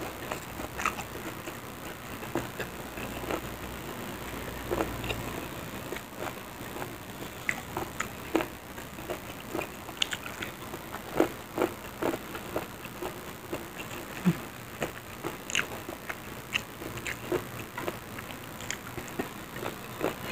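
Close-up sounds of eating rice and side dishes by hand: chewing and mouth smacks, with fingers gathering food on a plate, heard as many short, irregular clicks and smacks.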